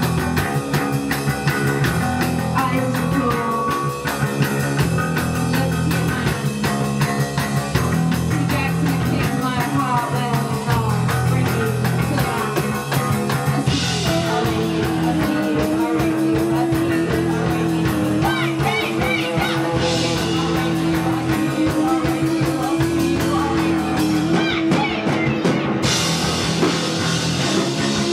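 Live rock band playing, with bass guitar, electric guitar and drum kit, and a woman singing. Cymbals come in brighter about halfway through, with a long held note over them.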